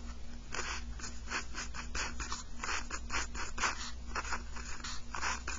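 Pen writing on paper: a quick run of short scratching strokes as letters and symbols are written, over a faint steady hum.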